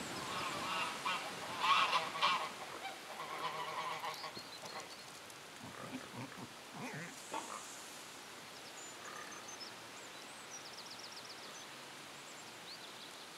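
Domestic geese honking: a run of loud, short, repeated honks in the first few seconds, then a few scattered calls before it goes quiet.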